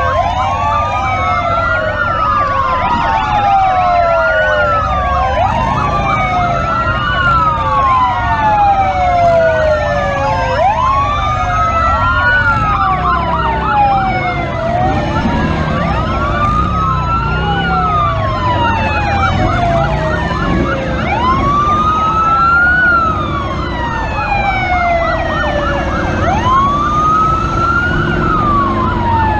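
Several police motorcycle sirens wailing together out of step, each rising and falling over a couple of seconds, with a faster yelping pattern mixed in. The motorcycles' engines run with a low rumble underneath.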